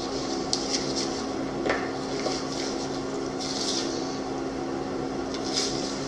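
Workshop sounds: a steady hum with a few scattered light clicks and taps, like small metal parts and tools being handled.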